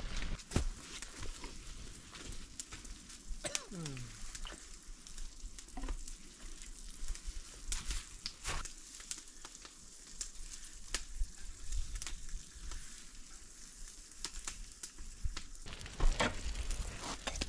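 Floured brook trout frying on a hot flat iron griddle over a wood fire: a steady sizzling hiss with scattered pops and crackles.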